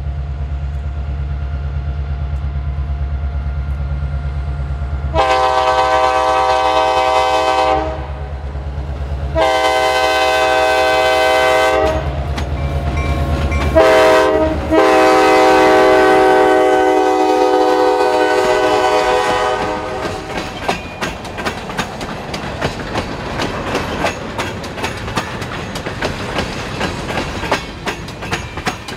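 RJ Corman diesel locomotive's air horn sounding the grade-crossing signal, two long blasts, a short one and a long one, over the low drone of its engine as it approaches and passes. After the horn stops, the tank cars roll by with a steady clickety-clack of wheels over the rail joints.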